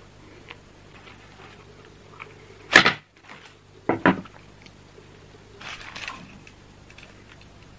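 Close-up handling sounds from a whole roasted chicken on crinkled baking paper. There is a sharp, loud clack about three seconds in, two smaller knocks a second later, and a short rustle of paper around six seconds.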